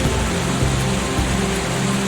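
Steady rain with soft ambient music of slow, held low notes underneath.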